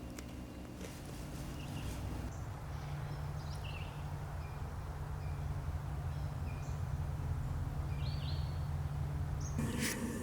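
Faint, short bird chirps over a steady low hum.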